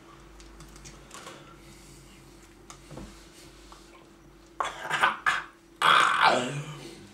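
Faint clicking and scraping of plastic spoons in plastic sundae cups, then, about four and a half seconds in, a young man's loud wordless vocal outburst: a few short bursts, then a long cry that falls in pitch.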